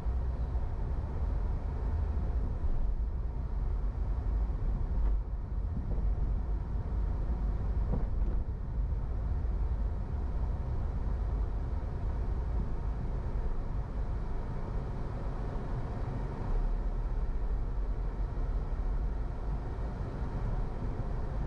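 A car driving through city streets: a steady low rumble of engine and road noise.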